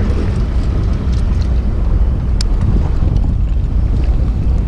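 Steady wind rumble buffeting the microphone aboard a fishing boat at sea, with a single sharp click about two and a half seconds in.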